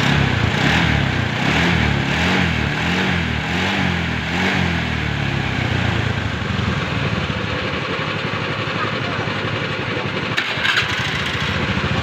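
Car engine idling with its fan belt running, pulsing regularly a little faster than once a second for the first few seconds; the mechanic puts the engine's squeal down to the fan belt. A couple of short clicks sound about ten and a half seconds in.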